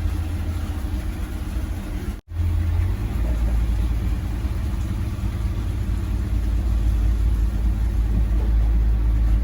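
Fishing boat's engine running steadily, a low rumble. It breaks off for an instant about two seconds in and then carries on a little lower in pitch.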